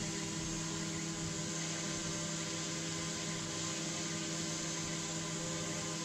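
Fire-damaged microwave oven still running on high: a steady electrical hum with a hiss of fan noise.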